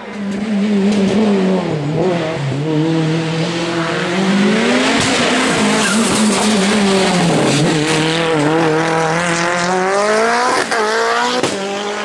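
Lancia Delta Evo rally car's turbocharged four-cylinder engine at full race revs, its pitch dropping and climbing several times as it shifts and accelerates through the hairpin. Two sharp backfire pops near the end.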